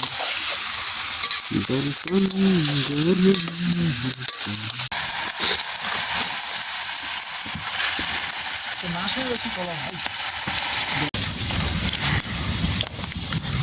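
Food sizzling as it fries in a pan: a steady hiss, with a faint voice in the background for a few seconds near the start.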